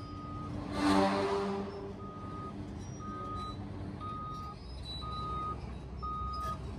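Backup alarm on heavy equipment beeping about once a second over the low rumble of diesel engines, with a brief louder surge about a second in.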